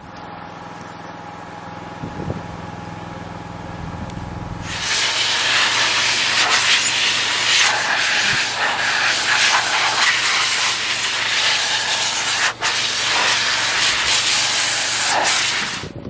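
Bee blower with a hose and nozzle running, then from about five seconds in a loud rushing air blast driven between the frames of a honey super to clear the bees off before harvest. The blast breaks off for a moment near the end and stops just before the end.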